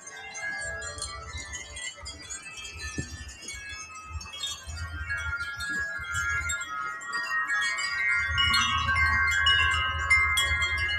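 A Chimes of Jerusalem wind chime ringing in gusty wind, many tones overlapping and ringing on. The chiming builds and gets louder over the second half, with wind rumbling on the microphone.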